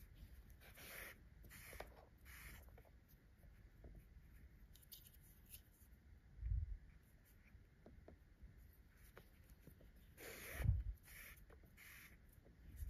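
Faint rustling and scraping of yarn being drawn with a sewing needle through a stuffed crocheted piece, as a few short strokes near the start and again near the end, with two soft low thumps from handling.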